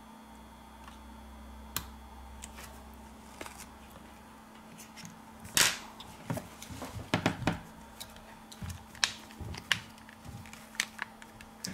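Plastic back cover of an LG K50 smartphone being fitted and pressed onto the frame, with the phone handled on the bench: a string of small clicks and taps, the loudest about halfway through. A faint steady hum runs underneath.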